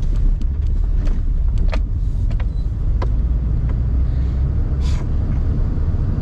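Car driving on the road, heard from inside the cabin: a steady low rumble of engine and tyres with scattered light clicks and rattles.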